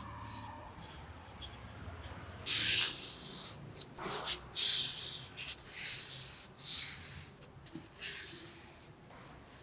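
A series of short, scratchy rubbing strokes, roughly one a second, with a few light clicks in between.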